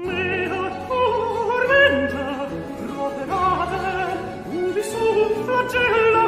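Countertenor singing a Baroque aria with wide vibrato over orchestral accompaniment. The voice comes in at the start, after a short lull in the music.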